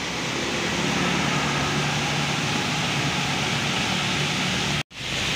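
Heavy rain on a wet road with an intercity bus's diesel engine running in a steady low drone as the bus pulls away. The sound drops out for an instant near the end.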